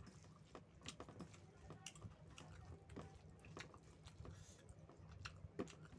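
Faint, wet chewing of a mouthful of rice and chicken curry: irregular soft mouth clicks and smacks, several a second, over a low steady hum.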